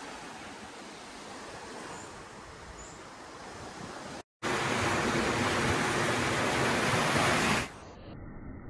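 Steady wash of surf with wind on the microphone. About halfway through the sound cuts out for a moment, then returns as a much louder, even rush, and near the end drops to a duller sound of waves washing against rocks.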